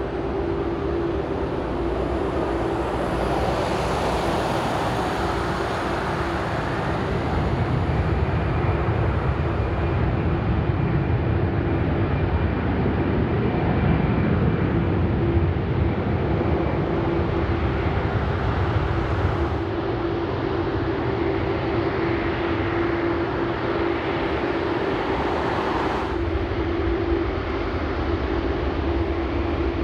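Jet engines of large airliners taxiing: a steady rumble and hiss with a constant low hum, and a thin high whine in the first ten seconds or so.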